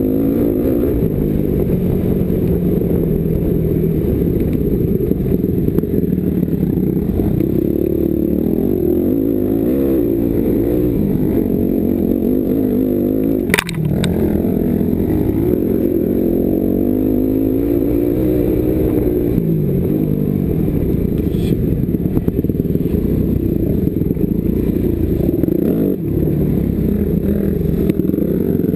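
Yamaha YZ250F four-stroke motocross bike's engine revving up and down as it is ridden over a dirt track, heard onboard. A single sharp knock comes about halfway through.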